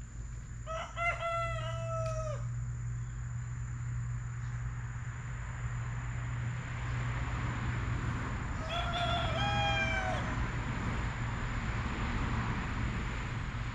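Rooster crowing twice, two long drawn-out crows that fall in pitch at the end, about a second in and again about nine seconds in, over a steady low hum and a hiss.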